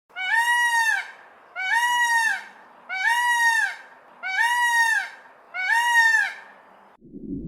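A large bird giving five loud honking calls, evenly spaced about a second and a half apart, each one rising and then falling in pitch. Near the end it cuts to a low, noisy rumble.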